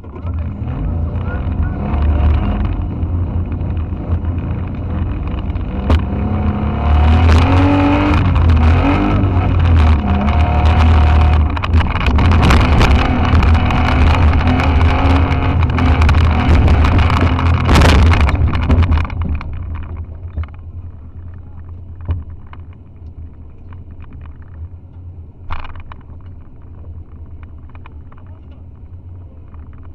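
Off-road car's engine heard from inside the roll-caged cabin, revving hard under load with many knocks and rattles. About twenty seconds in it drops to a much quieter steady idle, with a few light clicks.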